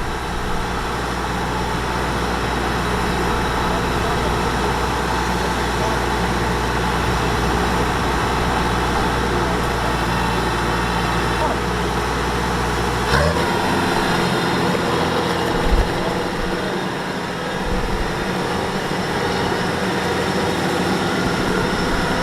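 Diesel engine of a Kubota DC-105X combine harvester running steadily. About halfway through there is a brief knock, after which the deep low part of the engine note drops away.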